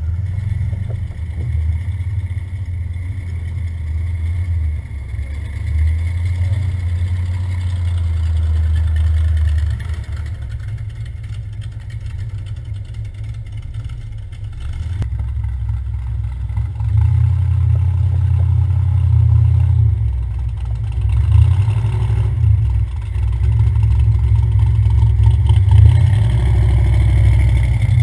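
Off-road vehicle engines idling and crawling at low speed, a steady low rumble. It grows louder in the second half as a lifted Jeep on mud tyres drives up close.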